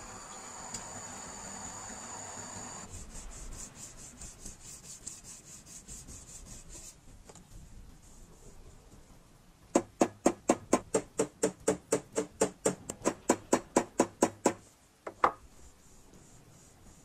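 Rhythmic rubbing strokes on a copper kettle's body along its seam, the metal ringing with each stroke. The strokes start light and quick, then turn loud at about five a second for some five seconds, with one more stroke near the end. A steady hiss comes first, for about three seconds.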